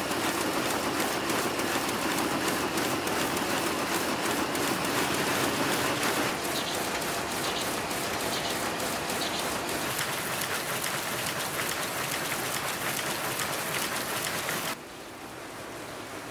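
Textile mill machinery clattering, a dense steady din of rapid, regular clicks over hiss. It turns quieter about a second and a half before the end.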